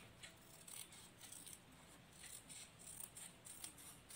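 Scissors cutting a folded strip of paper into a leaf shape: several faint, short snips.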